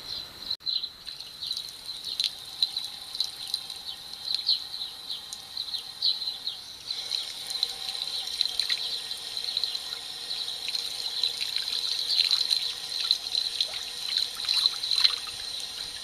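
Water running from an outdoor tap and splashing onto a thick cloth held under it, soaking the cloth through.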